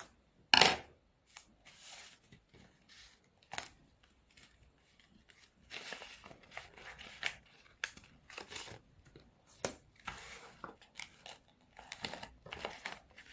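Short pieces of adhesive tape torn off, with paper crinkling as it is handled and pressed together. It comes as a string of brief rips and rustles, the loudest about half a second in.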